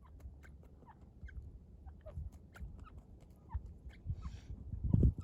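Grey francolins (teetar) giving soft, short clucking notes, with scattered faint clicks and a low thump near the end.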